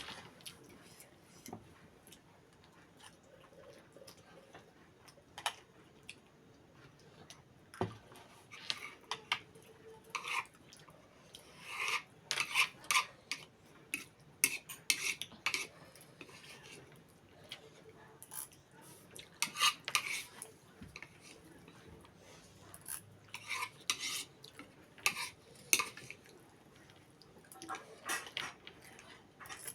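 Cutlery clinking and scraping against a plate while eating, in short irregular clusters of clicks.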